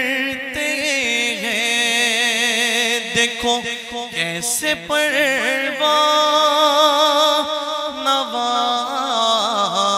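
A man reciting a naat, an Urdu devotional poem, singing long held notes that waver in pitch.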